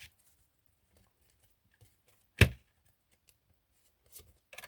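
Tarot cards being handled: one sharp tap on the table about two and a half seconds in, with a few faint ticks and soft card rustling near the end.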